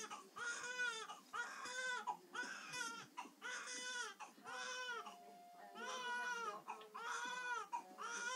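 Newborn baby crying in short, repeated wails, about two a second, each rising and falling in pitch, with a brief pause about five seconds in.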